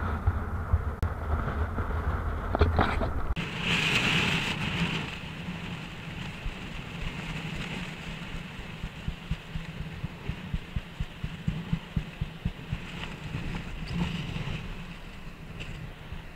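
Strong gusty wind, about 27 knots, buffeting an action camera's microphone, with a heavy low rumble in the first few seconds and a brief rush of hiss about four seconds in. From about six seconds in, the rumble thins and a run of soft thumps comes about twice a second.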